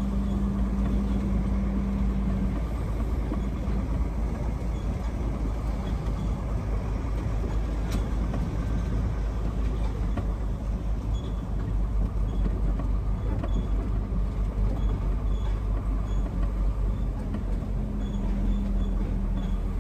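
Diesel truck engine running at low speed, heard from inside the cab as a steady low rumble while the truck rolls slowly, with faint repeated ticks and one sharp click about eight seconds in.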